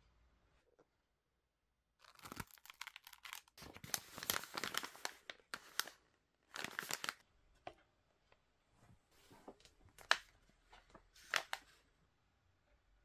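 Crinkling and rustling of coffee drip-bag sachets being handled and fanned out, in dense bursts for several seconds, then a couple of sharp light knocks.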